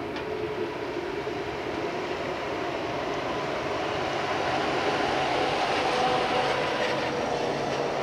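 Electric multiple-unit train running along the track: a steady rumble of wheels and motors with a faint hum, swelling slightly about six seconds in and then easing off.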